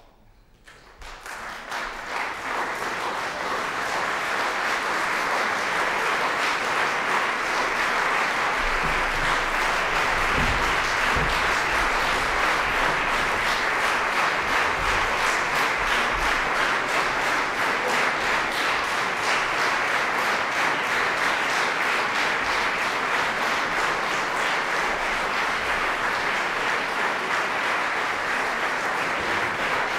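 Concert audience applauding: the clapping breaks out about a second in after near silence, swells over the next few seconds, then holds as steady, dense applause from a large seated crowd.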